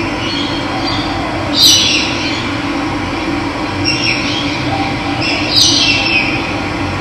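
Steady rush of running water with birds calling over it: two loud calls slide downward in pitch, about one and a half seconds in and again near five and a half seconds, with a fainter call around four seconds.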